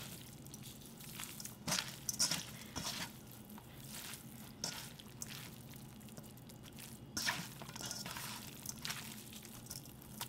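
A hand mixing oiled sweet potato glass noodles with vegetables and beef in a stainless steel bowl. It makes soft, wet squishing sounds in irregular bursts.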